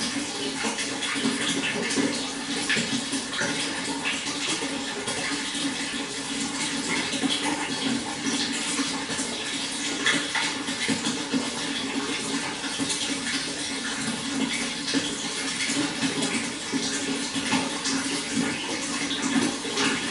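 Running water splashing steadily, a continuous rushing with many small splashes and no break.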